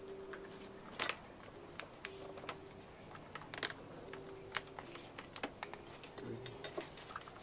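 Irregular light clicks and taps of the fuel injectors and fuel rail being handled and pressed into place on a Mini Cooper S R53 engine, with two sharper clicks about one second and three and a half seconds in.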